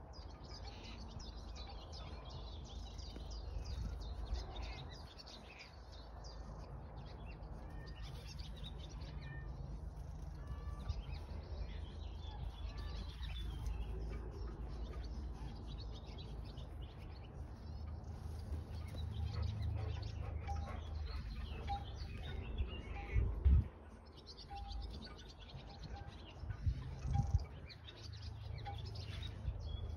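Small birds chirping and calling in the background over a steady low rumble. Two short thumps stand out in the last third.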